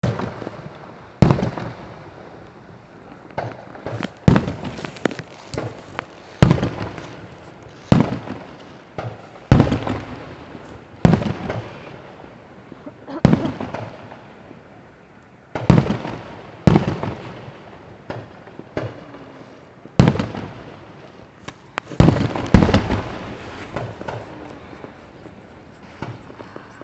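Fireworks going off: a series of sharp bangs, roughly one every one to two seconds and sometimes two or three in quick succession, each fading away briefly.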